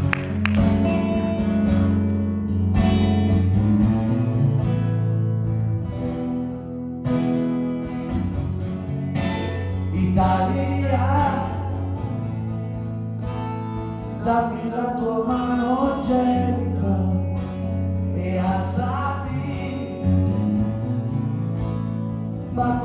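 Live rock band playing a song on acoustic guitar, electric guitar, bass and drums. A man's singing voice comes in over the band about ten seconds in.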